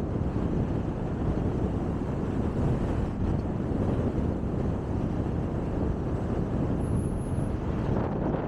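Steady low rumble of a car driving along a street, a mix of road and wind noise.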